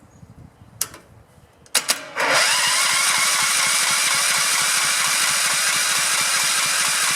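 Electric starter motor cranking a small four-stroke engine, switched in directly across the starter's two terminals: a couple of short clicks, then about five seconds of steady cranking without the engine catching. The engine has sat for a year, and the owner suspects a gummed-up carburetor.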